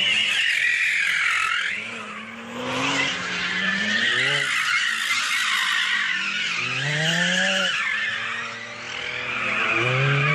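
Cars drifting: tyres squealing loudly and continuously, wavering in pitch, while an engine revs up sharply about four times.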